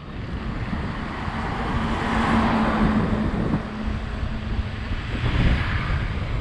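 Road traffic noise: a motor vehicle passing, its rush swelling about two seconds in, with a steady hum that fades out about four and a half seconds in, over constant road noise.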